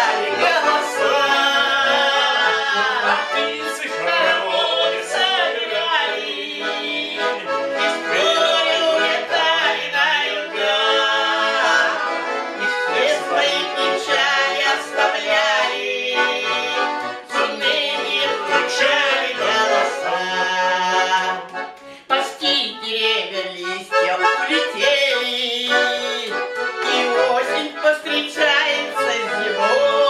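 A garmon (Russian button accordion) playing a folk song, with a man and a woman singing along in a wordless refrain.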